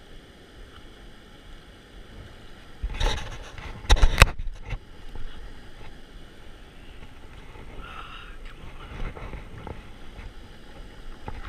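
Steady rush of water, broken by a few loud sudden bumps about three and four seconds in and smaller ones near the end.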